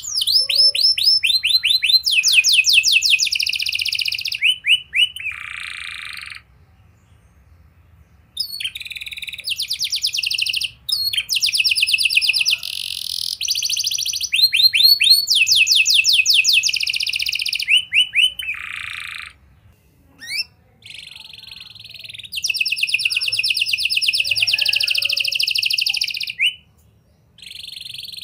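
Domestic canary singing long, rapid trills of repeated notes, one phrase running into the next, with two short pauses.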